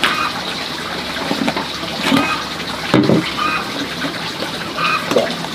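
Milky liquid being ladled out of a large plastic jar and poured into a small bottle, with splashing and trickling and a louder splash about three seconds in. Short high chirps recur every second or so.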